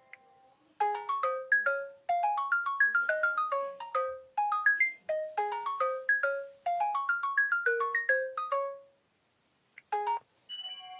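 Preloaded LG K10 ringtone playing a mallet-like melody of short notes in quick climbing runs, the phrase repeating about every two seconds and stopping after about eight seconds. After a short pause, a few notes of the next ringtone begin near the end.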